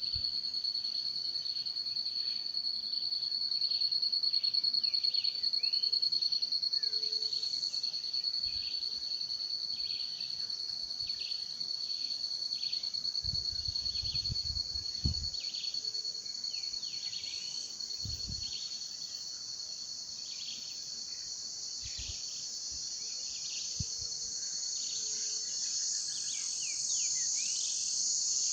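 Night-insect chorus of crickets: a steady, high-pitched continuous trill, with shorter chirps repeating about once a second beneath it. A few brief low rumbles come about halfway through.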